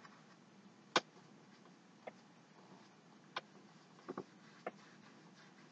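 A few light, sharp taps and clicks of a paintbrush dabbing against a stretched canvas: the loudest about a second in, then single taps and a quick pair spread over the next few seconds, against a faint steady hiss.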